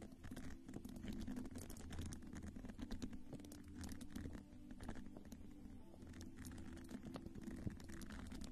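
Close-miked soft brushing and light scratchy taps of a round padded skin-care applicator worked against the microphone, many small strokes in quick succession, over a low steady hum.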